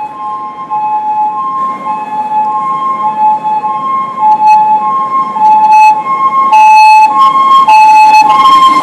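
Ambulance siren sounding the Japanese two-tone hi-lo pattern, switching between a higher and a lower tone about every half second. It gets louder in the last couple of seconds, where it turns harsh and distorted.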